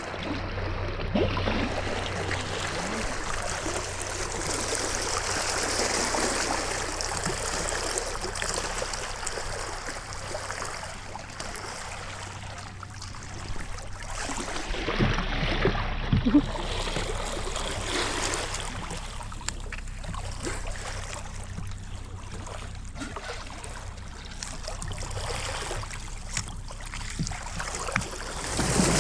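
Moving water rushing and splashing, a continuous wash that swells and eases, with a few sharper splashes about halfway through.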